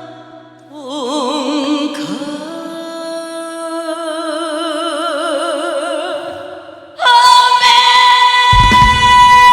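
Music with a singing voice holding long notes with strong vibrato; about seven seconds in, louder music with sustained chords comes in, and a heavy bass joins near the end.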